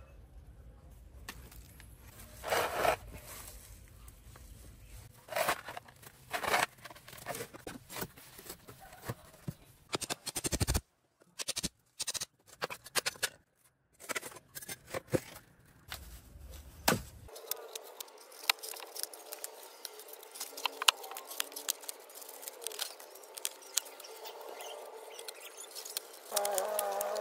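Scattered knocks and scrapes, then, from about halfway, green floral foam bricks being cut with a knife and crushed by hand: a dense run of small crackles and crunches.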